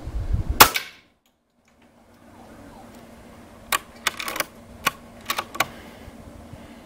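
Hatsan BT65 Elite PCP air rifle firing once, a sharp crack about half a second in. After a brief silence comes a quick series of about six sharp metallic clicks, the rifle's action being handled and cocked for the next shot.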